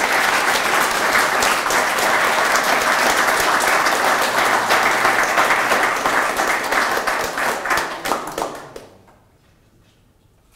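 Audience of seated guests applauding, dying away about nine seconds in.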